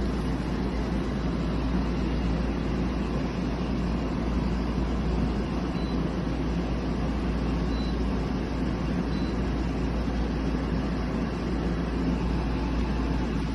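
Portable air conditioner running: a steady fan whoosh over a deep low hum.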